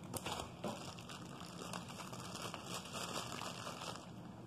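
Clear plastic zip-top bag crinkling and rustling as it is handled, with irregular small crackles throughout.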